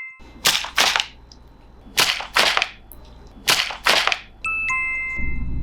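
Three pairs of short, sharp hissing bursts, like shot or whip effects made with the mouth, each pair about a third of a second apart. A bright electronic chime tone sounds just before the first pair and again near the end.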